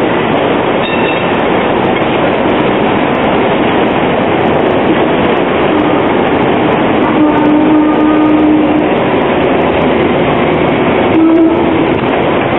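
Hong Kong narrow-gauge double-deck tram running over street track through points and curves: a loud, steady running noise of wheels on rail. A pitched tone rises out of it about seven seconds in and again briefly near the end.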